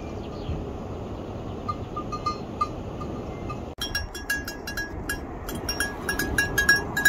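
Outdoor ambience with a few faint tinkles of a livestock bell. About four seconds in it cuts to a small bell on running goat kids, clinking quickly and unevenly with a bright ring.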